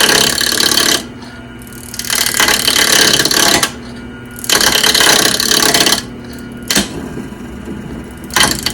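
Shop Fox W1704 mini wood lathe running with a bowl blank while a turning tool is pressed into the spinning wood in repeated passes: loud scraping, rattling stretches of one to one and a half seconds, with the lathe running quieter between them. The blank is badly held on the spur center, and the turner says the cut was not working right.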